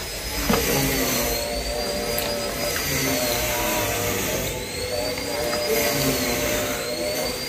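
A steady machine-like whirring hum with a high whine that slowly dips and rises every few seconds, and a short sharp smack about half a second in.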